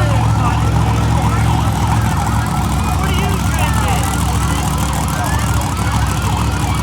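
Monster truck engine running at a steady, loud idle, with many short wavering high-pitched sounds over it.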